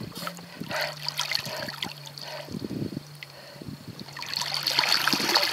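Water splashing and trickling against the side of an aluminium boat as a large catfish is held in the water alongside it, the splashing growing louder about four seconds in.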